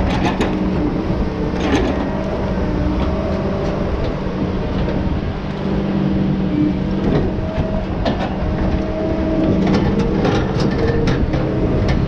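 Tigercat T234B knuckleboom log loader working logs: its diesel engine runs with a steady drone, with scattered clanks and knocks from the grapple and logs, a cluster about two seconds in and more from about ten seconds.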